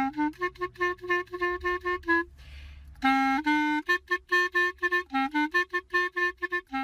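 Background music: a quick, bouncy melody of short, detached notes. It breaks off for under a second about two seconds in, then carries on.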